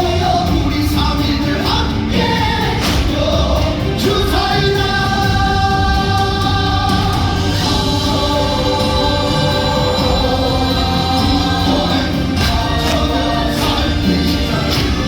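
A musical's cast singing together as a choir over loud accompaniment with percussion hits, the voices holding long notes.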